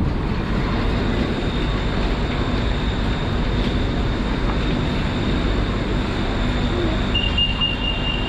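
Inside a BTS Skytrain car while the train runs: a steady rumble of wheels and traction motors. Near the end a thin, high, steady tone comes in over it.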